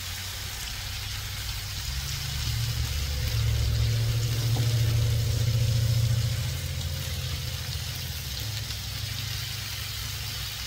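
Pork spare ribs sizzling steadily as they sear, under a low rumble that swells about two seconds in and fades again after about six seconds.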